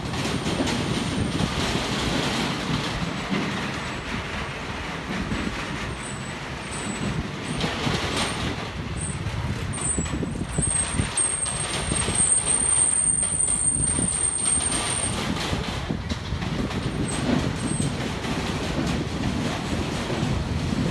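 Strong wind buffeting the microphone, a steady rumbling rush that rises and falls in gusts, as it blows through a field of tall flowering grass.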